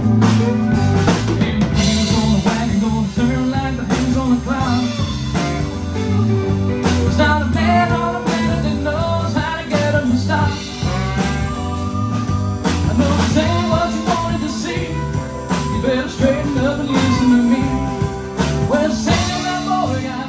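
Live rock band playing: electric bass, electric guitars and a drum kit keeping a steady beat.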